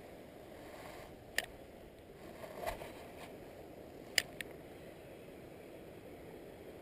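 A few sharp clicks from handling a spinning reel: one about a second and a half in, then two close together around four seconds, over a faint steady low rush.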